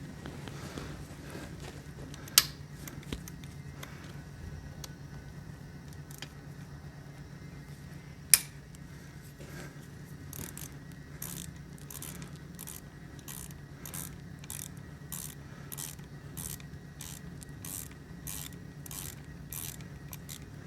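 Ratchet clicking in an even run of about two clicks a second through the second half, as a torque converter screw is slackened with a hexagon bit. Two sharp metallic clicks come earlier, over a steady low hum.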